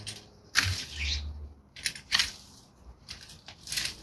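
Long-handled loppers cutting through dry rose canes: a few sharp snips and cracks, the loudest about half a second in, with rustling of dry branches between them.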